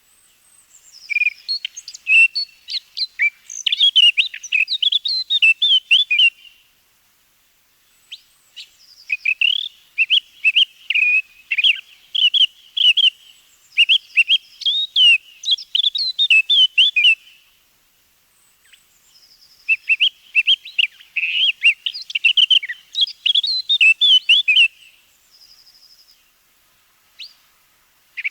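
Eurasian blackcap singing: three long bursts of quick, varied warbling separated by short pauses, with another beginning at the end.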